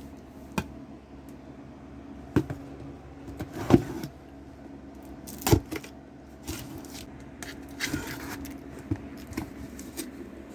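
Scattered knocks and clicks with some rustling as a boxed Ryobi cordless tool set and its packaging are handled and unpacked, over a faint steady hum.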